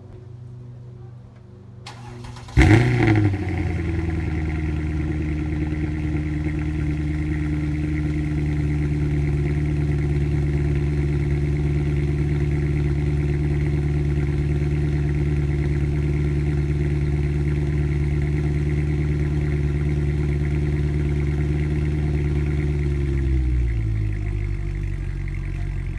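2007 Mercedes-Benz E63 AMG's 6.2-litre V8 with resonators and secondary catalytic converters deleted, cold-started. The starter cranks about two seconds in, the engine catches with a loud flare of revs, then holds a steady fast cold idle. Near the end the idle drops to a lower pitch.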